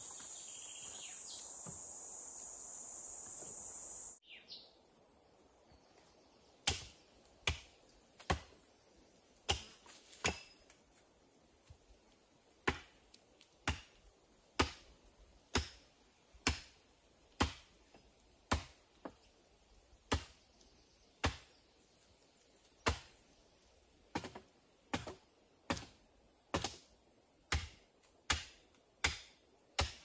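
Insects buzzing steadily in a high band, which cuts off abruptly about four seconds in; then wood being chopped with an axe, sharp strokes at roughly one a second, more than twenty in all, coming a little faster near the end.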